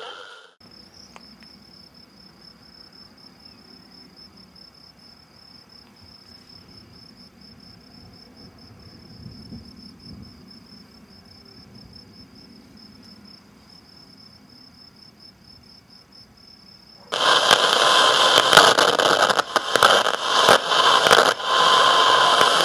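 A faint low hum with a thin, steady high-pitched whine. About three-quarters of the way through, loud crackling radio static cuts in suddenly, full of clicks and pops, as between stations on a radio dial.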